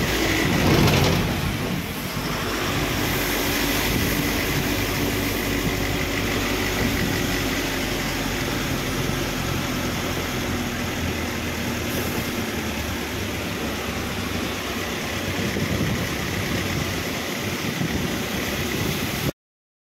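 Engine and road noise of a moving vehicle, heard from inside the cabin: a steady running sound with a louder rumble about a second in. It cuts off suddenly near the end.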